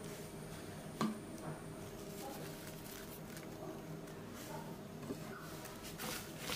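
Hands tossing and mixing sliced raw onions, green chillies and herbs in a glass bowl: a soft crisp rustling and squishing that grows busier in the last couple of seconds. A single sharp tap on the glass bowl about a second in.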